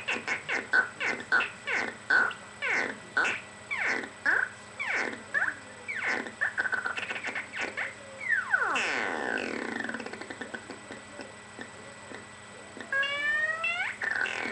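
Modular synthesizer patch playing a repeating run of quick falling pitch sweeps, about two a second, like laser zaps. About 8 seconds in one longer downward sweep with several overtones takes over, and near the end a burst of quick rising sweeps follows, as an envelope or modulation knob is turned.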